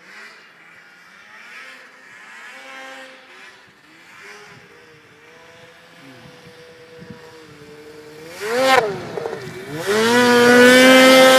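Polaris snowmobile engine running at a distance, then revving sharply with a quick rise and fall in pitch about eight and a half seconds in. It comes back loud and close, holding a high, steady engine note near the end.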